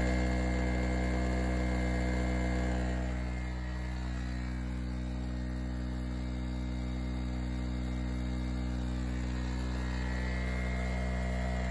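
Harbor Freight (Chicago Electric) 800-watt two-stroke portable generator running steadily at constant governed speed under a load of about 500 W from a halogen work light, an even droning hum.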